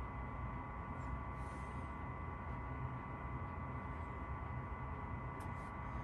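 Chinese diesel-fired combination furnace and water heater running with its blower fan on high: a steady hum with a faint, even high whine.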